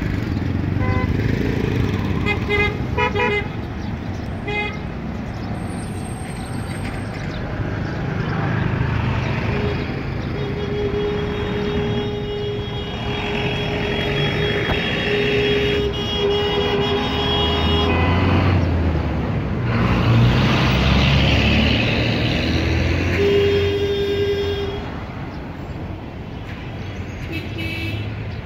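Road traffic with engines rumbling and vehicle horns honking: short toots in the first few seconds, then a long, wavering horn sounding for several seconds midway and a shorter one later.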